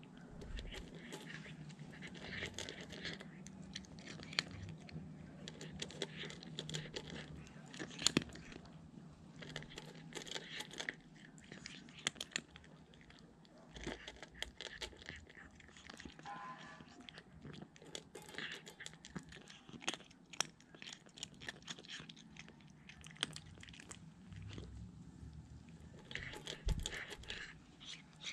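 Ginger cat crunching dry kibble from a stainless steel bowl, chewing in clusters of crunches with short pauses between mouthfuls.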